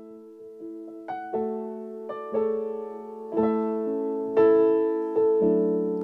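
Yamaha keyboard playing a slow piano introduction: chords struck about once a second and left ringing, growing louder.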